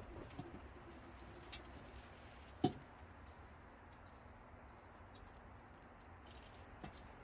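Quiet outdoor background with a few faint clicks and one sharp knock near the middle; a brief faint low tone sounds about half a second in.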